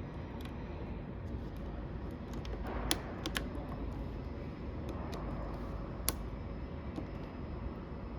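Small plastic clicks and taps from handling and fitting the parts of a selector switch: two sharp clicks about three seconds in and another about six seconds in, with fainter taps between.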